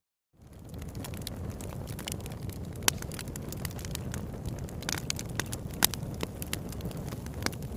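A wood fire burning, with a steady low rumble under scattered sharp crackles and pops. It fades in from silence within the first half second.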